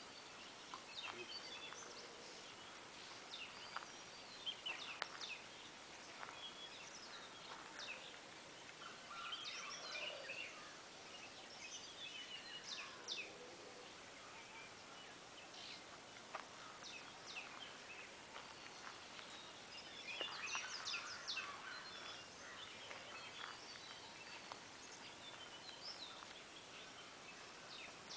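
Faint background birdsong: scattered short chirps and calls from several small birds, with a few busier stretches of calling around the middle and later on.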